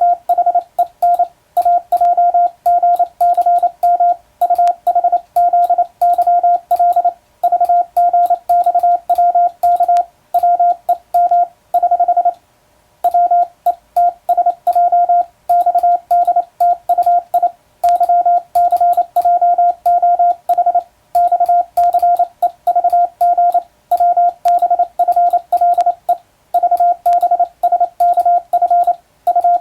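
Morse code sent by hand on a telegraph key: a steady sidetone of about 700 Hz keyed on and off in dots and dashes at a brisk pace, with a sharp click at each stroke. There is a brief pause about thirteen seconds in.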